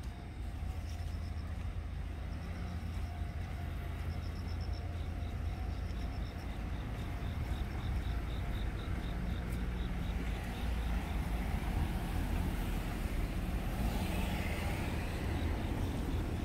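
Road traffic: a steady low rumble, with a vehicle growing louder and passing close in the last few seconds.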